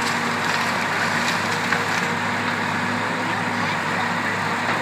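Tracked excavator's diesel engine running steadily while its demolition grapple tears at a house roof, with a few sharp wood cracks and snaps in the first couple of seconds.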